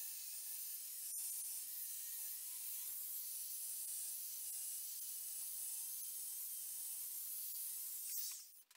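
Angle grinder with a wire cup brush stripping paint from the horn of a cast anvil: a steady hiss with a faint, wavering motor whine. It cuts off suddenly near the end.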